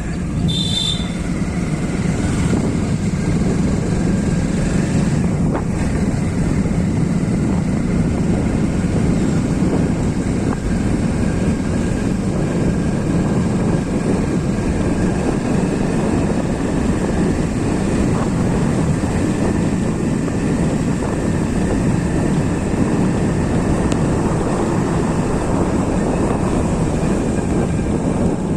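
Steady low rumble of a moving vehicle, with a short horn toot at the very start.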